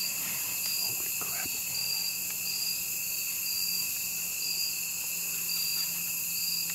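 Insect chorus, crickets and the like, singing steadily and high-pitched, with one high pulsing call repeating about once a second.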